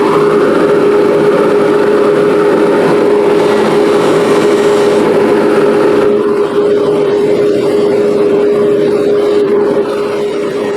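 Electric buffing wheel running at speed with a steady hum and a noisy hiss, buffing a pair of steel crimpers; the hiss thins out about six seconds in.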